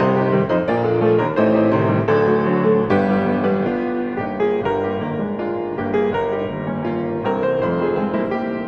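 Grand piano played solo in classical style, with full chords over a moving accompaniment, growing gradually softer.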